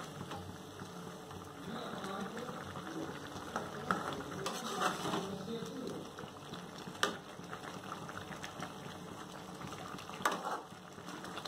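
Spiced quail gravy boiling hard in a metal pan on high heat, a steady bubbling as its water cooks down toward a dry fry. A few sharp clicks of the spatula against the pan, the clearest about seven and ten seconds in.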